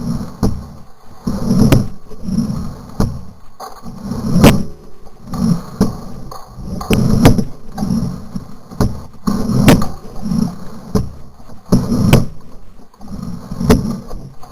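Footsteps on the ground, about one heavy step a second and a little uneven, with loose gear jangling and knocking at each step.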